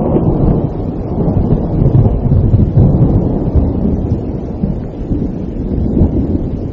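Low, rolling thunder rumbling through a storm, with wind, loudest about two to three seconds in.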